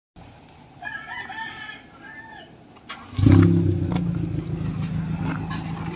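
A rooster crows about a second in. Then, just past three seconds, the 2006 Toyota Fortuner's gasoline engine starts suddenly and settles into a steady idle.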